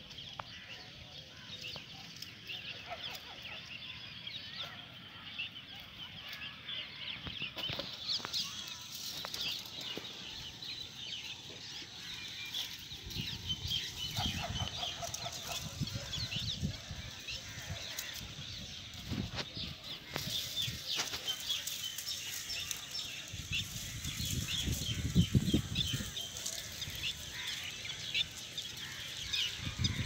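Many birds chirping and calling, with patches of low rumbling now and then.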